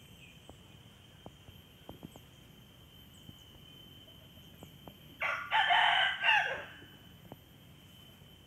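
Rooster crowing once, for about a second and a half, a little past the middle.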